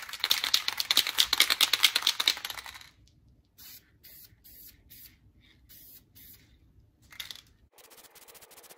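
Aerosol spray paint can shaken hard, its mixing ball rattling rapidly for nearly three seconds. Then a run of short hissing spray bursts follows as touch-up paint goes onto the missed spots.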